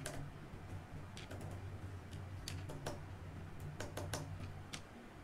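Computer keyboard keys clicking in short, irregular runs of typing, with pauses between them. A faint low hum lies underneath.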